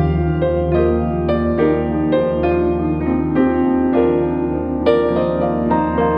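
Slow, gentle piano music: a steady run of single notes, about three a second, over held low bass tones.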